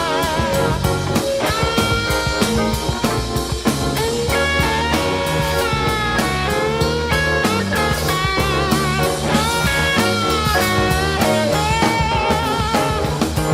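Rock band playing an instrumental passage: an electric guitar lead with bent notes and wide vibrato over bass and drums.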